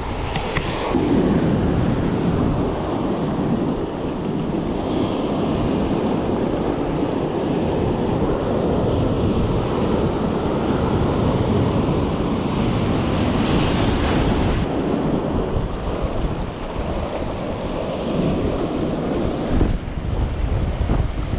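Atlantic surf breaking and washing over granite rocks close by, with wind buffeting the microphone. A brighter hiss of water swells about twelve seconds in and cuts off suddenly a couple of seconds later.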